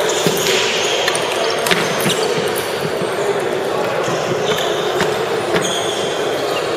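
Table tennis balls clicking sharply and irregularly off tables and paddles, over the steady background noise of a busy gymnasium with murmuring voices.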